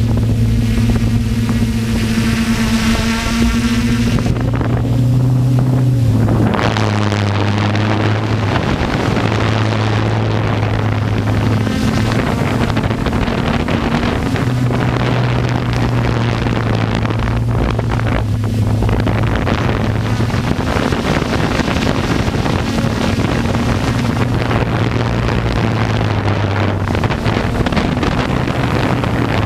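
Electric motors of a radio-controlled aircraft carrying a brushless camera gimbal, humming steadily and shifting up and down in pitch every few seconds, with heavy wind rushing over the microphone.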